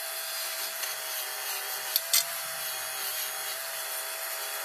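Handheld rotary tool running with a steady whine while its small wire brush wheel scrubs paint and grime off a die-cast metal toy body, a steady rasping scrub. A couple of sharp ticks about two seconds in.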